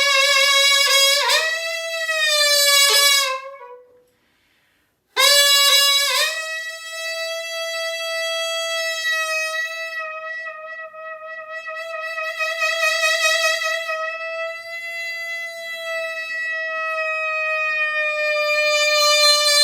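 Solo piri, the Korean double-reed bamboo oboe, playing an improvised phrase with bent notes. After a break of about a second it holds one long note with a wavering vibrato, which swells louder near the end.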